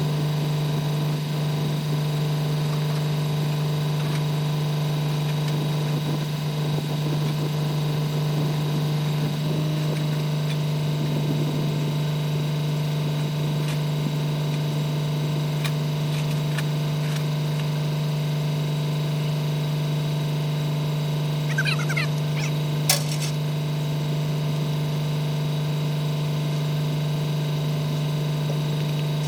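A steady machine hum at one even pitch, with a few light clicks about 22 to 23 seconds in.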